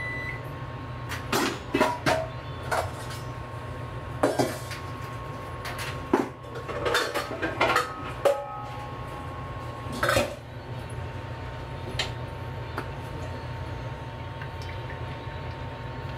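Kitchenware being handled: a series of sharp clinks and knocks of metal and crockery over the first ten seconds or so, then only an odd tap, above a steady low hum.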